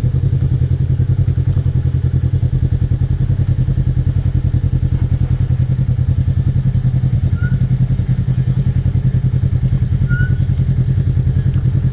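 Polaris RZR side-by-side's engine running steadily at low revs, a deep, rapid, even pulsing with no change in speed.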